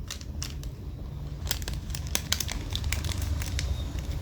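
Crinkling and crackling of something being handled: a scatter of small, irregular sharp clicks that grows busier after about a second and a half.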